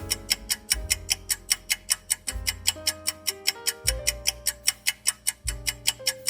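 Background music with a fast, steady clock-like ticking beat over a low bass line and a simple melody of held notes.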